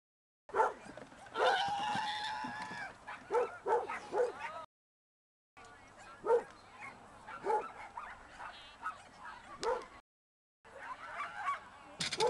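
A dog barking again and again in short, sharp barks during an agility run. The sound drops out completely three times: at the very start, about five seconds in and about ten seconds in.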